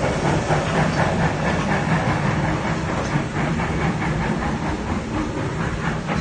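A train running: a steady rumble and rattle with no break.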